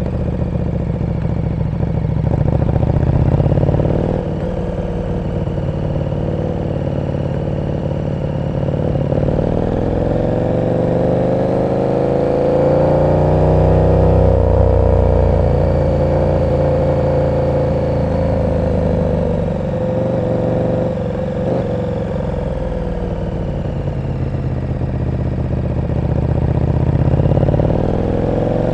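KTM 1290 Super Duke R's V-twin engine and exhaust while riding in traffic. Its pitch climbs as the bike accelerates about nine seconds in, falls back as it slows, holds steady, then climbs again near the end.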